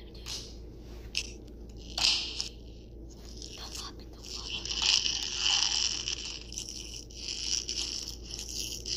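Scraping and crunching noises made close to the microphone: a few short bursts, then a steadier rustle from about halfway through.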